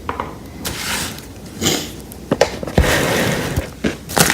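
Packaging being handled during an unboxing: scattered rustling with several sharp clicks and knocks.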